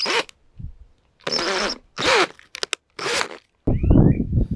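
Several short rasping strokes, each about a third of a second, with a few quick clicks between them, then wind buffeting the microphone near the end.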